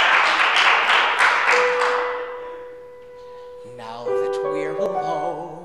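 Audience applause that dies away over the first two seconds. A grand piano then begins the song's introduction: a held note, then chords from about four seconds in.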